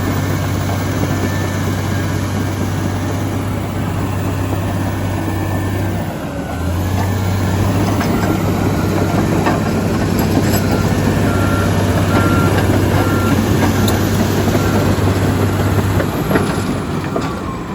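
Komatsu D85EX bulldozer's diesel engine running with a steady low drone that dips briefly about six seconds in and then picks up again, with a few knocks and clanks. Later a row of short, evenly spaced beeps sounds for a few seconds.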